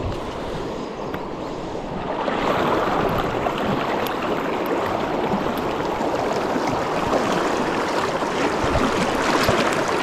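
Mountain river rushing steadily over shallow riffles, a continuous wash of running water that gets louder about two seconds in.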